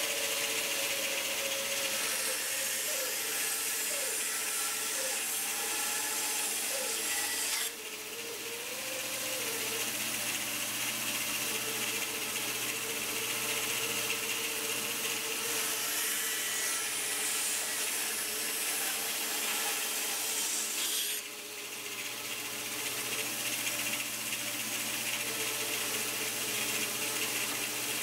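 Band saw slicing a thin piece off the front and back of pine drawer blocks, the blade cutting steadily with a wavering pitch. The cutting sound drops suddenly twice, about a quarter of the way in and again about three-quarters through, then builds back up.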